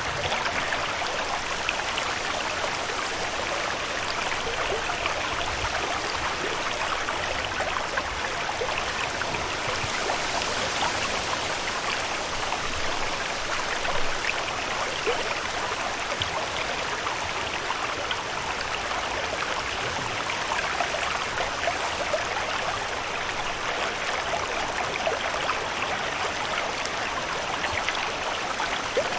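Steady water ambience: a constant rush of running water with fine splashes and drips throughout, and one slightly louder splash about halfway through.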